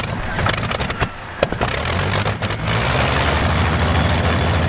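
27-litre WWII aero V12 engine starting: ragged, uneven firing with pops and a sharp bang about a second and a half in, then it catches and settles into a steady, deep-toned run from about two seconds in.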